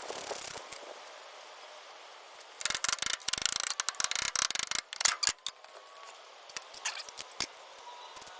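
Hand ratchet wrench clicking rapidly for about two and a half seconds, starting a few seconds in, then a few scattered metallic clicks of tools and winch parts.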